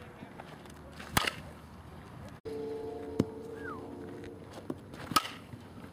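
Softball bat hitting balls in batting practice: two sharp cracks about four seconds apart, with a lighter knock between them. A low steady hum runs for a couple of seconds in the middle.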